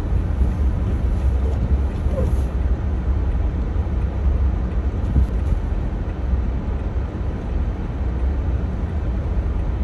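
Steady low rumble of a car heard from inside its cabin, with no distinct events.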